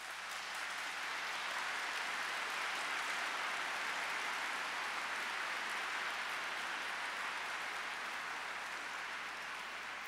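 Audience applauding, a steady sustained clapping that eases a little near the end.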